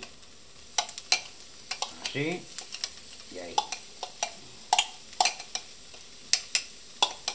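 Spatula knocking and scraping against a nonstick frying pan in irregular sharp clicks while browned onion with garlic and parsley is stirred, over a faint steady sizzle of frying oil.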